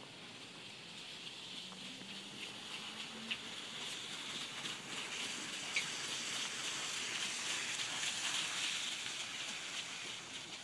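Miniature horse trotting in harness and pulling a two-wheeled cart over gravel: a steady crunching hiss of cart wheels and hooves on the gravel, growing louder as the cart passes close by midway and easing near the end, with a couple of sharp clicks.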